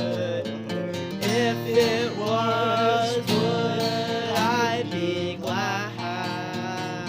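A song: acoustic guitar accompaniment with a singing voice that comes and goes in phrases.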